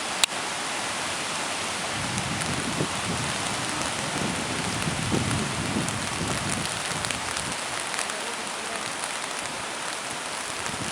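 A river in flood rushing below a bridge: a steady wash of water noise, with a deeper rumble swelling between about two and seven seconds in. A single sharp click comes just after the start.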